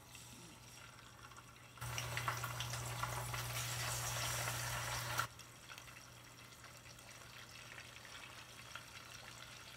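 Hot oil sizzling in a deep pot as pieces of fish are lowered in to fry. A loud sizzle starts about two seconds in and drops off sharply after about three seconds to a quieter steady sizzle.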